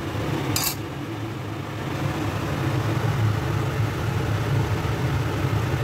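Taro leaves in coconut milk simmering in a stainless steel pan on an induction cooktop: a steady low hum under a bubbling hiss, with one brief high hiss about half a second in.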